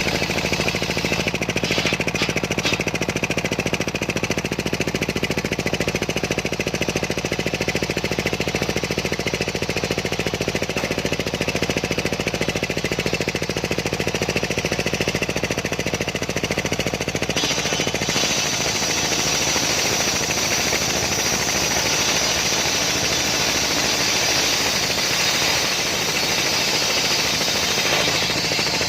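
Homemade engine-driven circular sawmill running as it cuts a large sengon log: a loud, steady machine drone. About two-thirds of the way through the sound suddenly changes, the low hum dropping back and a harsher, hissier high sound taking over.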